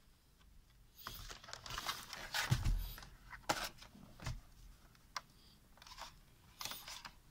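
Handling noise of a plastic monitor and its stand being turned upright on a foam packing sheet: rustling and scraping with a dull thump about two and a half seconds in, then a few scattered clicks and knocks.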